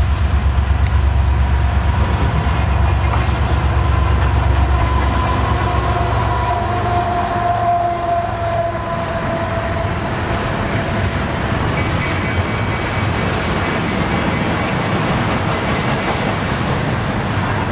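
CN diesel freight locomotives going by with a deep engine rumble that eases after about five seconds, then double-stack container cars rolling past with steady wheel-on-rail noise. A drawn-out tone sinks slightly in pitch a few seconds in.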